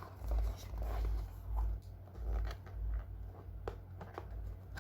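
Hands handling a GoPro camera box and its packaging: scattered small clicks and light rustles, with soft low bumps.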